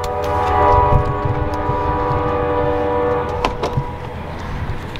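Train horn sounding one long steady chord of several notes for about three seconds, over a low rumble.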